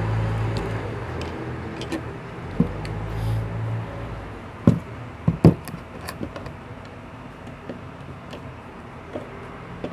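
Steady low electric-motor hum that dies away about four seconds in, followed by a few sharp clicks and knocks.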